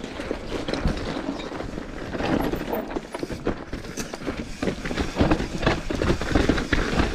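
Mountain bike rattling down a rocky trail: a steady noise of tyres rolling over rocks and gravel, with many quick knocks and clatter from the bike.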